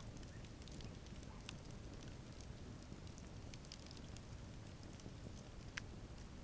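Campfire crackling with scattered small pops over a low steady rumble, and one sharper pop near the end.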